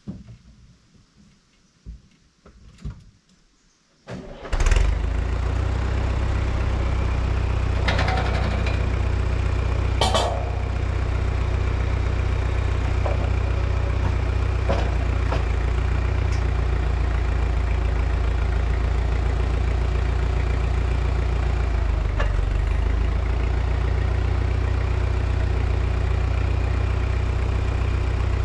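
Tractor engine starting about four seconds in and then running steadily, with a couple of sharp knocks over it about eight and ten seconds in.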